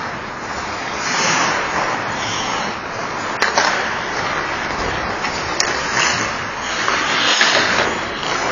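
Ice hockey play on a rink: skate blades scraping and carving the ice in repeated swells, with two sharp clacks about two seconds apart.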